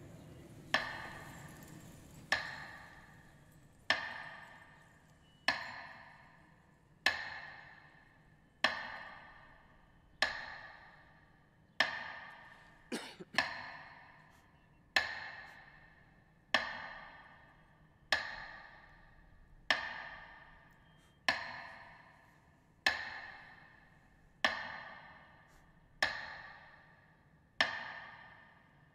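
Metronome beats marking a minute of silence: single sharp, ringing strikes about every second and a half, each dying away before the next. A short extra click comes about halfway through.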